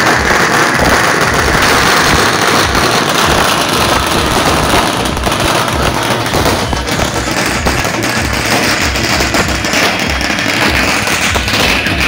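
Firecrackers going off in the street in a rapid, unbroken crackle of bangs.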